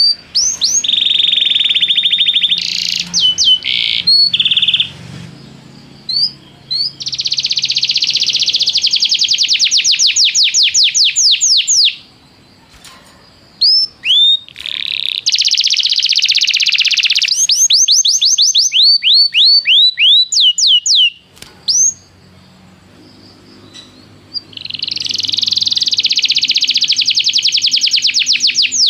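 Domestic canary singing: long, rapid trills and runs of quick falling whistled notes, in phrases broken by short pauses about 12 and 21 seconds in.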